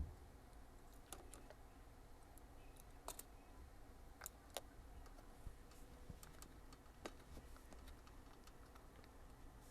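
Near silence with a faint hum and a few scattered short clicks, about six in all, spaced irregularly.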